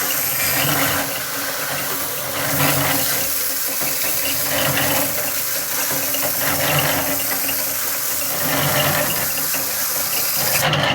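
Water from a hose nozzle spraying steadily into a concrete mixer's turning drum, splashing through the drum's mixing fins: the initial water charge before the first 80-pound bag of concrete goes in.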